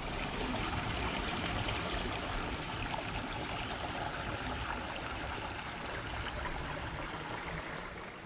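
Small creek water running over rocks in a steady trickling, splashing hiss, easing a little near the end.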